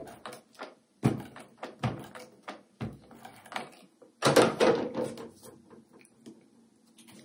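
Handheld dry-adhesive tape gun being run over the back of a paper die cut and handled on a tabletop: a few separate knocks about a second apart, then a louder, longer clatter about four seconds in, with light ticks of handling after it.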